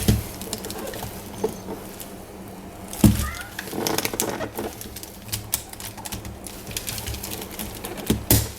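Hands unpacking a puzzle cube from its squashed cardboard and plastic packaging: a run of light clicks and rustles, with a louder knock about three seconds in.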